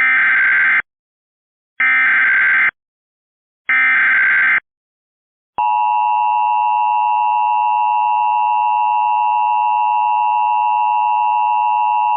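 Emergency Alert System SAME header: three short buzzy data bursts about two seconds apart. About halfway through, the steady two-tone EAS attention signal follows, marking the start of a new emergency alert.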